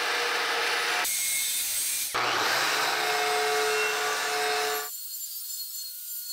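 Angle grinder with an abrasive disc grinding into a steel plate weld joint, back-gouging to cut out a line of incomplete fusion. About five seconds in the grinding drops to a much quieter high hiss as the disc comes off the metal.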